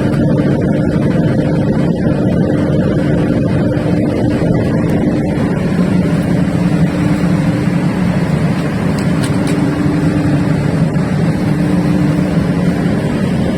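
Perkins diesel engine of a 1400 kVA generator set running steadily under test, a loud constant drone with a steady hum.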